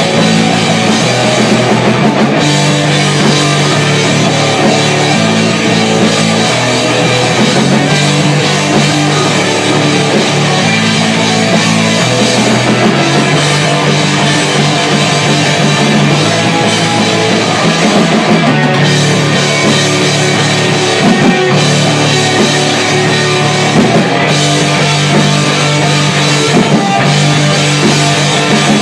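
Rock band playing live: two electric guitars through amplifiers over a drum kit, loud and without a break.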